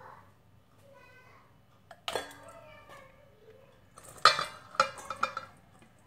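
Stainless steel bowl and steel knife clinking together: one sharp knock about two seconds in, then a cluster of quick metallic clinks and knocks about four to five seconds in.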